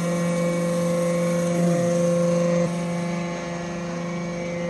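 Hydraulic scrap-metal briquetting press running with a steady machine hum of several held tones. About halfway through, one of the tones drops away and the hum gets slightly quieter.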